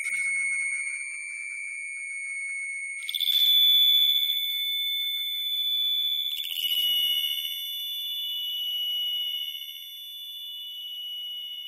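High bell-like ringing tones struck three times, about three seconds apart, each at a different pitch and each ringing on long enough to overlap the next.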